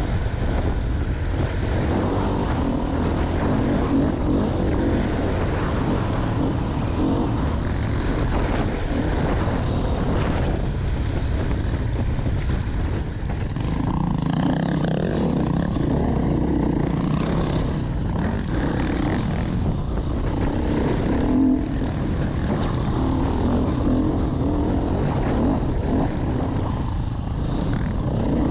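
Enduro dirt bike engine running hard on a trail, its pitch rising and falling with the throttle, heard from an onboard GoPro with frequent knocks and rattles.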